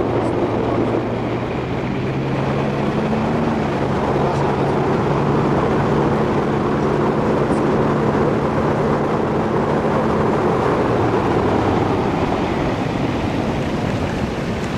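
Outboard motor of an inflatable motor boat running under way, with the steady rush of wind and water over the hull. A low hum in the engine sound fades out about ten seconds in.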